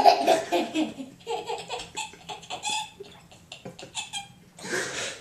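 Toddler laughing hard in choppy bursts, loudest in the first second and fading off, with a breathy gasp near the end.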